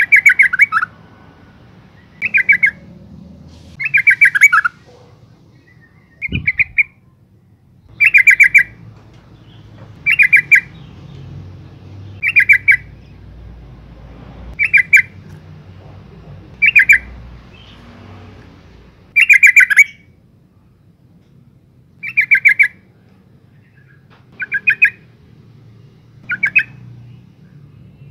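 Yellow-vented bulbul, a female, giving short bursts of rapid chattering call notes roughly every two seconds: a female's calling that draws males. A brief low thump about six seconds in.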